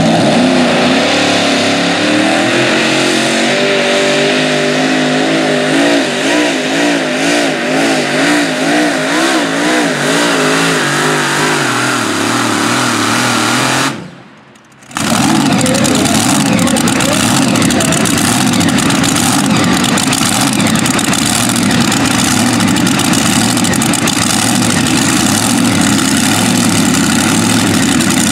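Supercharged engines of a multi-engine modified pulling tractor running hard under load, the pitch rising and wavering up and down. About fourteen seconds in the sound drops out for about a second, then the engines run on steadily and loudly.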